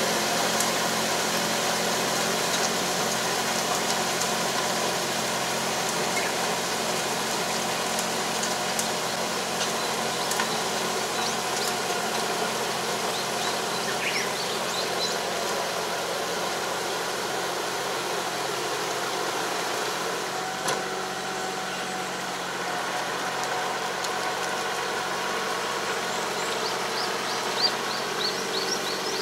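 Tractor engine running steadily while it pulls a 3 m Kobashi drive harrow through a flooded rice paddy, puddling the soil. The sound slowly fades as the tractor moves away.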